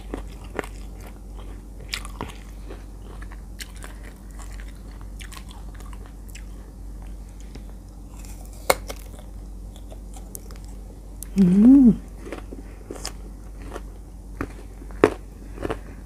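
Close-miked biting and chewing of crunchy slices of sour green mango coated in chili-salt, with sharp crunch clicks scattered through steady chewing and one louder crunch near the middle. About twelve seconds in comes a brief hummed vocal sound that rises and falls in pitch.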